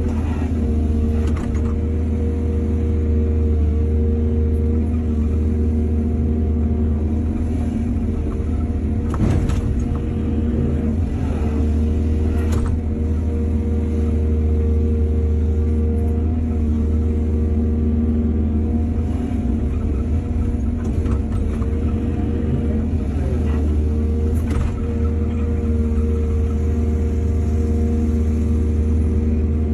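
Heavy diesel engine of an excavator running steadily under load while it loads soil into a truck, with a few sharp knocks about 9, 12 and 24 seconds in.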